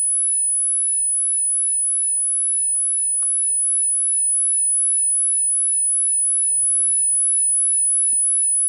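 Steady high-pitched line whistle at about 10 kHz from a Sony 9-306UB TV's line output stage running on the 405-line standard, whose line frequency is 10.125 kHz. A few faint ticks sound underneath.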